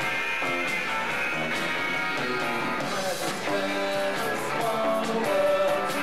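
Live rock band playing: several electric guitars sounding chords and melody notes over drums with frequent cymbal strokes. The recording is thin, with almost no deep bass.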